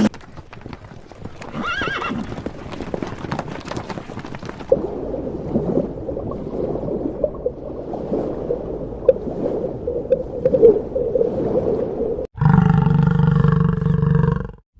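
Horse whinnying briefly about two seconds in, followed by several seconds of irregular clatter of hooves. Near the end, after a sudden cut, a different animal gives one long, steady call.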